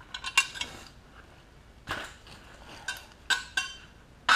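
Light metallic clinks and clatters of bolts and the sheet-metal windage tray being handled and worked loose from the bottom of an engine block: a cluster of sharp clinks at the start, then single clinks about two seconds in and several more in the last second and a half.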